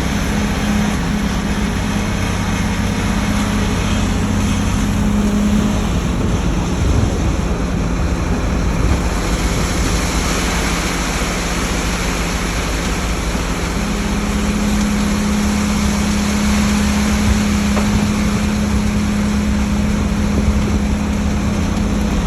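Engine of concrete-pouring machinery running steadily, its hum easing about six seconds in and coming back stronger from about fourteen seconds, over a constant rush of noise.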